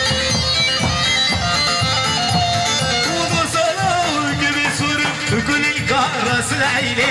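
Folk dance music with a melody line over a steady drum beat.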